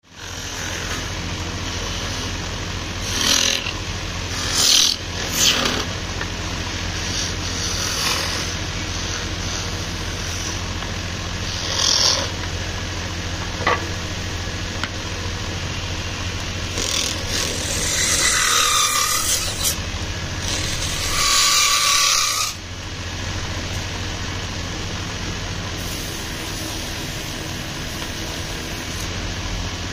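Wood lathe running with a steady motor hum while a hand-held turning tool cuts and scrapes a small spinning wooden pot. There are a few short scraping passes in the first half, then two longer, louder passes of a couple of seconds each about two-thirds of the way through.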